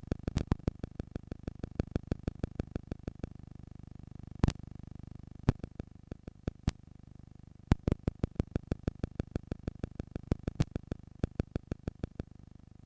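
Cassette tape playback: an uneven run of sharp clicks, several a second with a few louder ones, over steady tape hiss and low hum.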